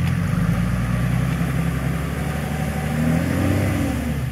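Off-road 4x4's engine running while the vehicle sits front-first in broken ice and water, straining to push through. The revs climb and fall back in the last couple of seconds.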